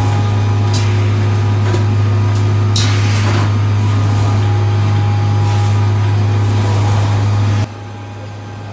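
Automated container-unloading machine running with a loud, steady low hum, broken by a few short hisses in the first few seconds. Near the end the hum drops suddenly to a quieter level.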